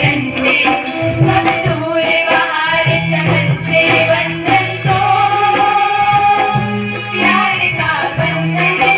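A Hindi devotional-style song about a mother playing: a sung melody over instruments, with a tabla-like drum beat in the low end.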